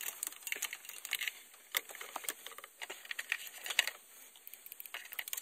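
Irregular light clicks, taps and scrapes of a hand tool worked around the engine bay, probing the oil pressure sensor port for its screen.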